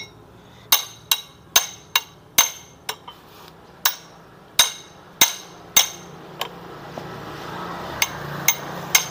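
Hammer striking a steel tool again and again to tighten the CVT clutch nut on a Honda Vario 125: sharp, ringing metal-on-metal blows, roughly two a second, with a couple of short pauses.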